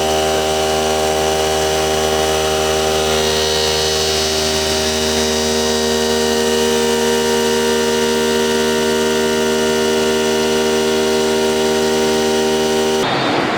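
Large CNC working center running, a steady mechanical sound of several fixed tones over a hum. Near the end it changes suddenly to a rougher, noisier sound.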